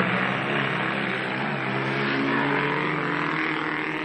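Engines of small saloon autocross cars racing on a dirt track, revving hard, their pitch climbing about halfway through.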